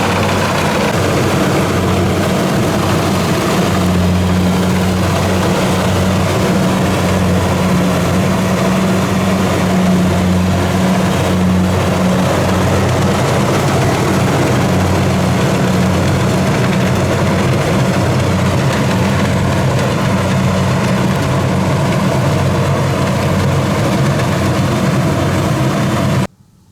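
Diesel engine of a rice combine harvester running steadily under load with a loud, even hum, then cutting off suddenly near the end.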